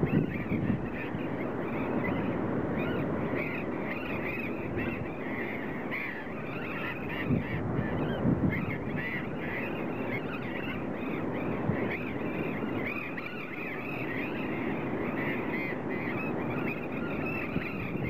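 A colony of burrowing parrots calling all at once: a dense, unbroken chatter of short, overlapping squawks.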